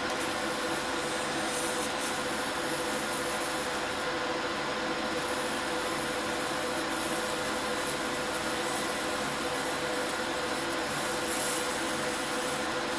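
TIG welding arc burning steadily on steel plate: an even hiss with a faint steady hum under it. The 140 welder is working on 3/16-inch plate, heavier than its 1/8-inch rating, so the arc runs too cold and the weld goes very slowly.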